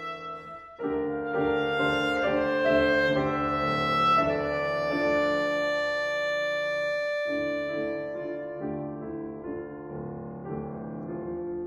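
Instrumental background music, breaking off briefly just under a second in.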